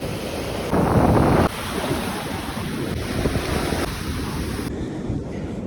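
Ocean surf washing in with wind buffeting the microphone, and a louder rush about a second in.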